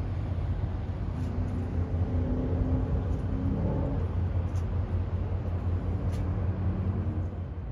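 Steady low engine rumble, with faint short tones above it now and then.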